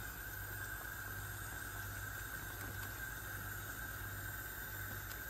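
Steady hiss with a low hum from a gas hob, around a pan of sauce simmering with small bubbles, with no distinct events.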